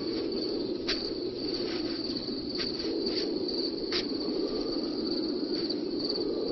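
Crickets chirping steadily over a low, even background hum, with a few faint ticks.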